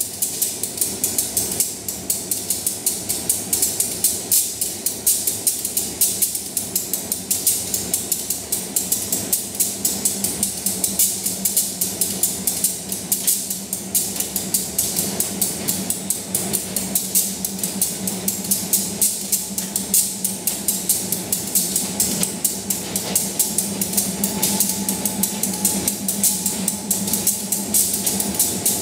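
Diesel-electric locomotive of SRT's GEA class idling while standing: a steady engine hum with a rapid, regular ticking over it. A faint higher whine joins in near the end.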